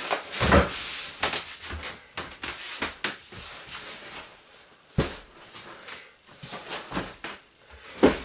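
Furniture being turned and shifted by hand: irregular knocks and scrapes, with heavier thumps about half a second in, about five seconds in and near the end.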